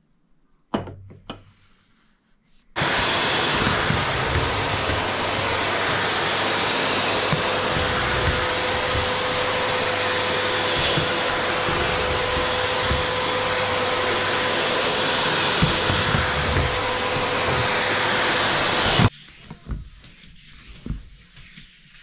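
Two sharp knocks about a second in, then a stick vacuum cleaner switched on, running with a steady motor whine as it cleans a tiled floor, and cutting off abruptly about three seconds before the end.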